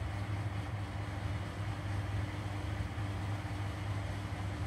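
Steady low hum with a background hiss of room noise, unchanging, with no knocks or handling sounds.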